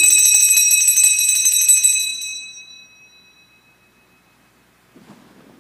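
Altar bells shaken in a rapid jingling ring to mark the elevation of the host at the consecration, then left to ring out, fading away about three seconds in.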